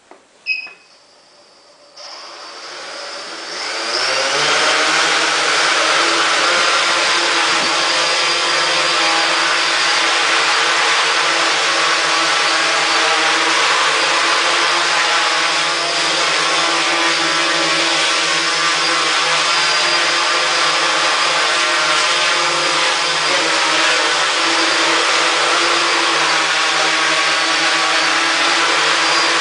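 Ideafly IFLY4 quadcopter's electric motors and propellers: a short high beep, then the motors spin up about two seconds in, rising over the next two seconds to a steady, loud, multi-toned buzzing whine as the quad hovers.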